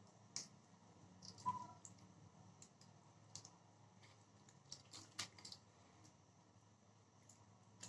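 Near silence with faint scattered clicks from hands pulling apart and cleaning a magur catfish at a boti blade, the loudest about a second and a half in.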